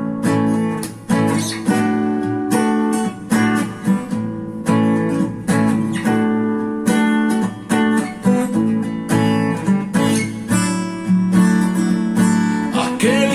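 Acoustic guitar strumming chords in a steady rhythm, an instrumental introduction to a song.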